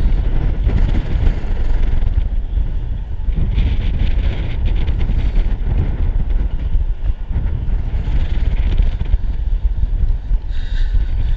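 Strong wind buffeting an action camera's microphone high on a tower crane: a loud, gusting low rumble with no steady tone.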